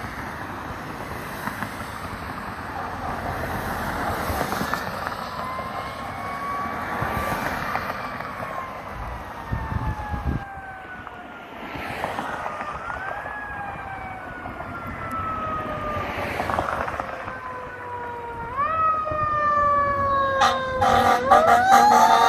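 Fire engine siren wailing in repeated sweeps, each rising quickly and then falling slowly, over the hiss of passing traffic. It grows louder as the pumper approaches; near the end the sweeps come faster and a second siren tone climbs over them.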